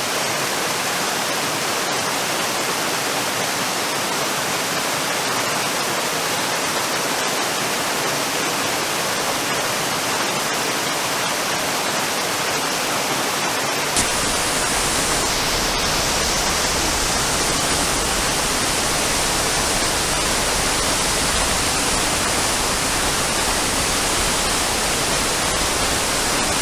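Waterfall: a steady rush of falling water. About halfway through the sound changes abruptly and becomes deeper and fuller.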